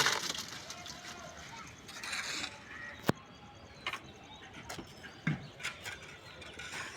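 Construction-site clatter: scattered sharp knocks, one loudest about three seconds in, over a steady noisy background, with indistinct voices.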